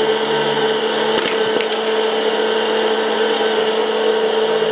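Uncanny Brands Captain America hot-air popcorn maker running: its fan motor hums with a steady whine over a rush of blowing hot air, and a few kernels pop with sharp cracks between one and two seconds in.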